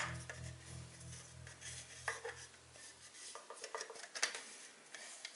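Scattered light clicks and clinks of a thin aluminium beer can being turned over and handled, fingers pressing and tapping its wall.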